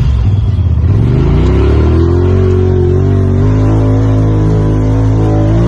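Polaris RZR Pro XP 4 side-by-side's turbocharged twin-cylinder engine at full throttle. The revs dip briefly at the start, climb over about two seconds, then hold steady and high as the CVT shifts out.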